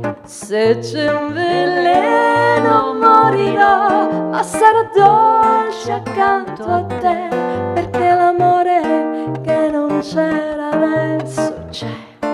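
A woman singing a pop melody accompanied by an acoustic guitar, which plucks low bass notes and chords under the voice.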